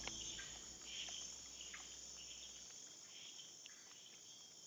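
Nighttime insect chorus, faint: a steady high-pitched trill, with scattered short chirps.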